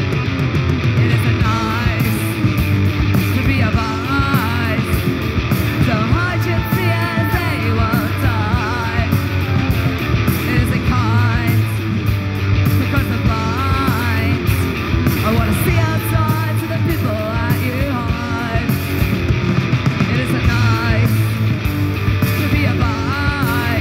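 Live punk rock band playing loud and steady: distorted electric guitar, bass guitar and a drum kit, with a singer's voice over it.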